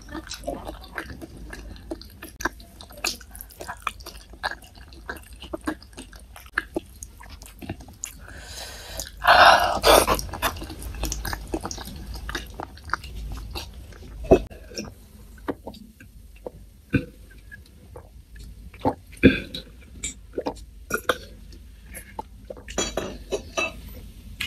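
Close-up eating sounds: chewing and wet mouth smacks on boneless chicken feet in sweet soy sauce, with many short clicks spread through. There is a louder, noisier mouth sound about nine seconds in.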